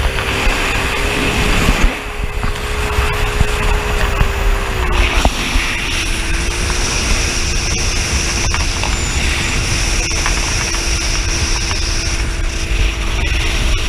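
Speedboat engine running steadily under way, its pitch easing down slightly about five seconds in, with wind buffeting the microphone.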